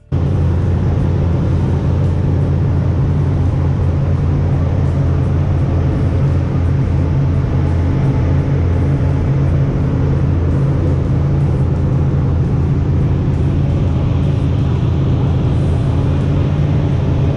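Fishing boat's engine running steadily under way, a loud low hum over a wash of wind and water noise, cutting in suddenly.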